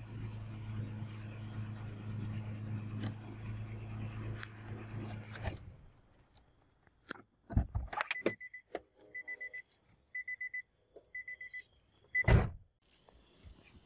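Car sounds: a steady low engine hum that cuts off about five seconds in. Then a couple of clicks and thumps, the car's warning chime beeping about once a second for four beeps, and a loud car door slam near the end.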